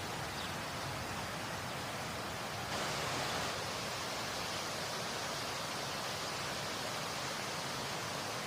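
Waterfall rushing steadily, growing a little louder and brighter about three seconds in.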